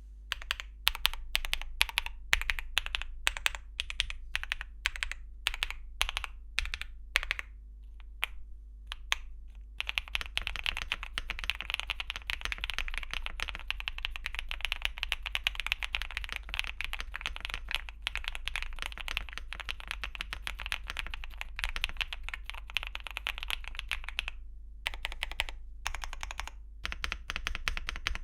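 MonsGeek M2 V5 mechanical keyboard with Gateron Smoothie linear switches and Cherry-profile double-shot PBT keycaps being typed on. For about the first ten seconds the keys are pressed one at a time with short gaps. Fast continuous typing follows for about fourteen seconds, then comes a brief pause, and a few scattered keystrokes close the stretch.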